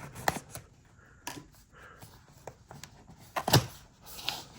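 Hands handling a boxed camera and its packaging: scattered light clicks and taps, with a louder knock about three and a half seconds in.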